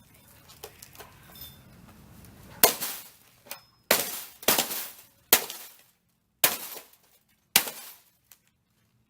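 Plasma TV being smashed: about six heavy blows land between roughly two and a half and eight seconds in, each with a crash of breaking glass and a short rattle of shards.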